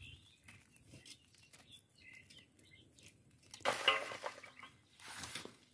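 Handfuls of wet banana-flower florets squeezed out and dropped into a metal bowl, with water dripping and small clicks, and two louder rustling splashes about three and a half and five seconds in. Birds chirp faintly.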